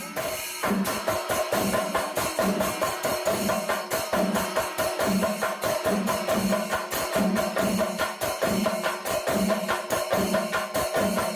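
Music with a steady drum beat, about two beats a second, over a held note.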